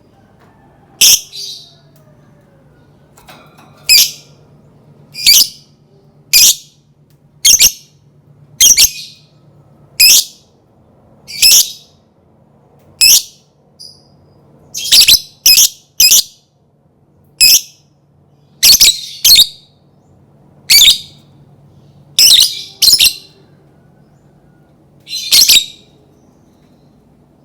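Lovebird giving short, sharp, high-pitched calls, about eighteen of them spaced roughly a second apart and sometimes in quick pairs. A faint steady hum runs underneath.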